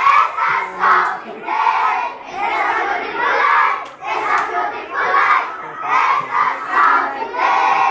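A crowd of young voices chanting a yell in unison, in loud shouted phrases about one a second.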